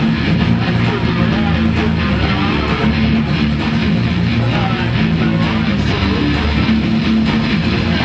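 Live rock band playing loudly, led by electric guitar and bass guitar holding low sustained chords and notes.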